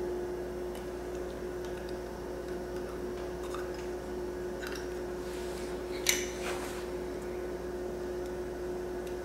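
Small clicks and taps of plastic and brass packing pieces being handled and fitted into a pressure washer's brass pump head, with one sharper click about six seconds in. A steady hum runs underneath.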